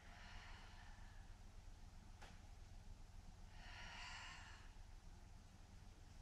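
Near silence with a person breathing during a held stretch: a soft breath at the start and a longer breath out about four seconds in. A faint click about two seconds in.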